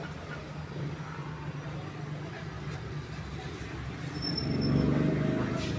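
Steady low engine rumble, like a motor vehicle running, growing louder about four seconds in.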